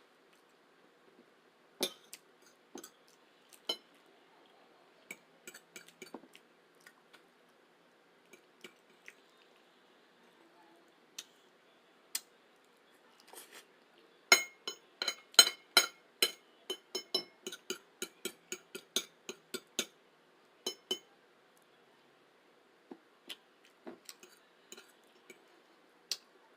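Cutlery clinking against a dish while eating spaghetti, in sharp separate clinks. There is a quick run of about three or four clinks a second in the middle.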